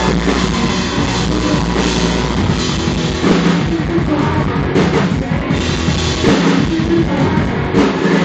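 Live rock band playing loudly, with a drum kit driving the song.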